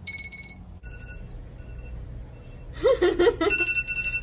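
Electronic timer alarm beeping, short high beeps repeating at an even pace after a brief opening chime, marking the end of the eating minute. A loud voice breaks in about three seconds in.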